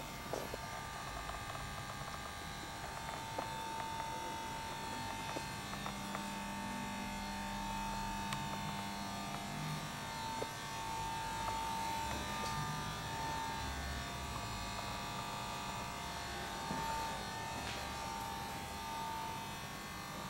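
Steady electrical hum and buzz, with a high whine that fades in and out and a few faint clicks.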